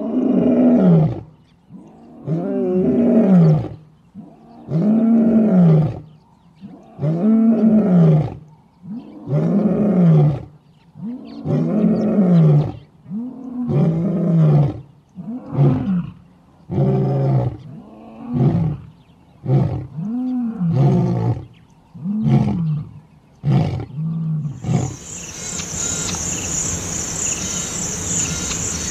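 Lion roaring in a long bout: a series of deep calls that rise and fall in pitch, about two seconds apart, growing shorter and closer together toward the end. Near the end the roaring stops and a steady high insect drone takes over.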